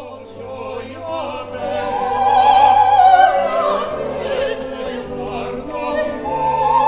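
Operatic singing with wide vibrato over an orchestral accompaniment with sustained low notes; the voice swells to its loudest about two to three seconds in.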